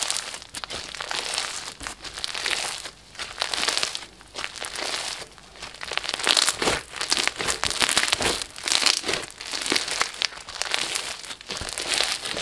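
Glossy slime with sprinkles being stretched, folded and squeezed by hand, crackling and popping in repeated surges as air pockets in it burst.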